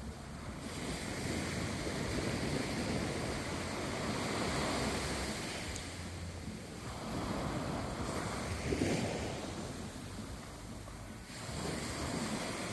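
Ocean waves washing onto a shore, the rush swelling and fading every few seconds, with some wind on the microphone.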